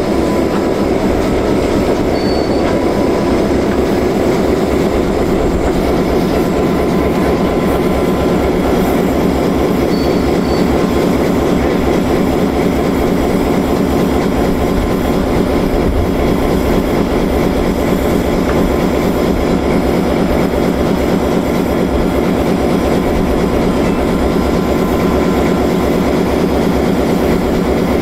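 Diesel locomotive engine running close by, a loud, steady, rapidly pulsing drone, as the locomotive moves slowly up to a car to couple.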